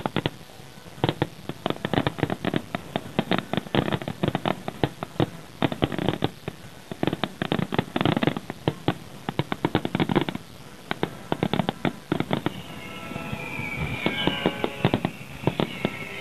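Aerial fireworks shells bursting in a rapid, dense volley of bangs and crackles, thinning out after about ten seconds. Music comes back in under the last few bursts.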